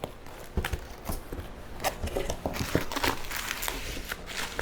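Packaging being handled and crinkled, with irregular crackles and small clicks, as an item is unwrapped.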